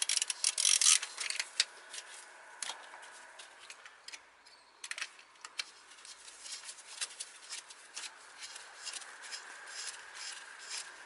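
Ratchet wrench clicking in quick runs as a bolt is worked loose, loudest in the first second and a half, then scattered clicks and light taps of tools on the engine.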